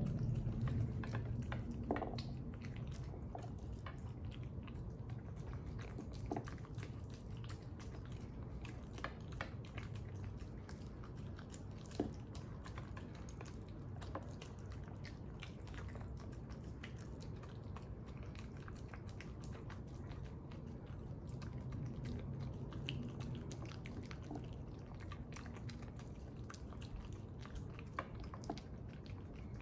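A small dog chewing and biting through pieces of carrot and greens: irregular small crunches and wet clicks, a few sharper bites near 2 and 12 seconds in, over a steady low hum.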